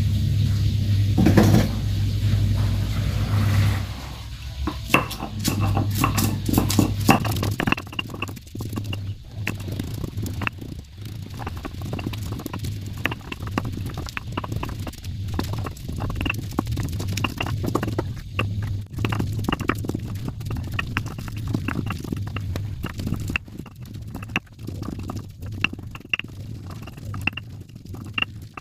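Stone pestle crushing and grinding chillies, shallots and garlic on a flat stone cobek mortar: repeated knocks and scrapes of stone on stone. A steady low hum runs underneath, loudest in the first four seconds.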